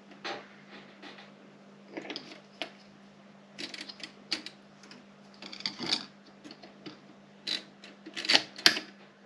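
Erika 30 typewriter being typed on: irregular sharp keystroke clacks of the type bars striking the platen, some single and some in quick runs, the loudest near the end. A steady low hum sits underneath.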